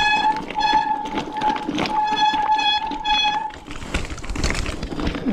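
Wet mountain-bike disc brakes squealing in a steady high tone, cutting in and out several times as the brakes are dragged and released, then stopping about three and a half seconds in. Under it the tyres and bike rattle and knock over a wet, rocky trail.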